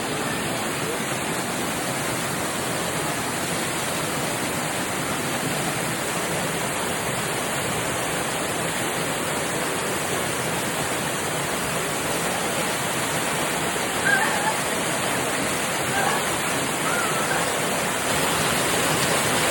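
Waterfall pouring down steadily: a dense, even rush of falling water with no breaks.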